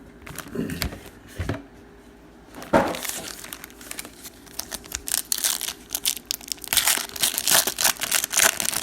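Plastic wrapping of a Panini Prizm Football mega box and its trading card packs being handled and torn open: a few dull knocks, then from about five seconds a dense run of crinkling and tearing.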